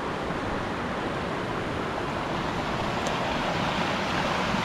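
Small mountain creek running over rocks: a steady rush of water.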